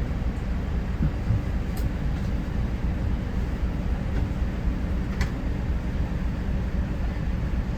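Bus driving, a steady low engine and road rumble heard from inside the cabin, with a couple of faint clicks.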